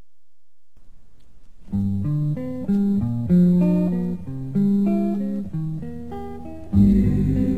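Soundtrack music, the intro of a northern soul song: a run of single melodic notes, each fading, starting about a second and a half in, with the full band coming in near the end.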